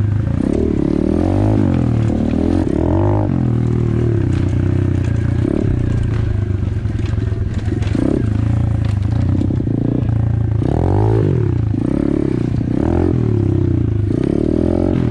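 Apollo RFZ 125cc pit bike's single-cylinder four-stroke engine being ridden at low speed, the revs rising and falling every second or two as the throttle is worked on and off.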